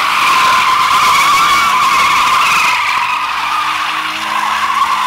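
BMW convertible's rear tyres squealing continuously as the car drifts in circles, spinning the wheels, with the engine held at steady high revs underneath. The squeal eases slightly about four seconds in, then comes back.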